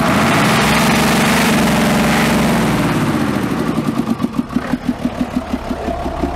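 The naturally aspirated 150-horsepower engine of a Star fire truck is revved once, its pitch rising and falling back over about three seconds. It then settles into a lumpy, pulsing idle with a strange, grunting sound.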